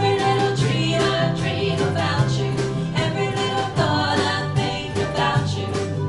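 Live acoustic-electric band playing a song: strummed guitars, ukulele and mandolin over an electric bass line, with voices singing.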